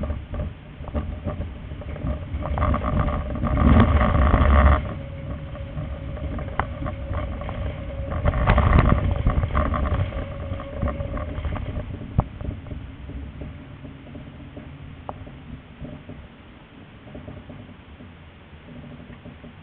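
Tram running on street track, heard from on board: a steady rumble with scattered clicks as the wheels cross rail joints and switches. It swells twice, about four and nine seconds in, with a steady whine while the tram takes a curve.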